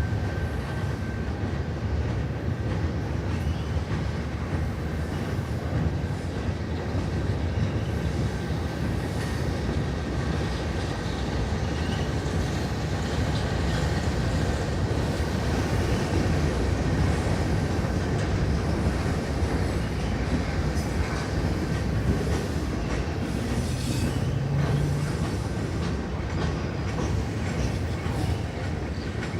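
CN freight train rolling by steadily, its wheels giving a continuous low rumble on the rails, with a faint thin squeal in the first half.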